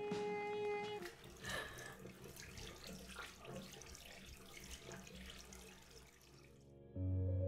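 Water running and splashing for several seconds, after a held guitar note ends about a second in; soft piano music comes in near the end.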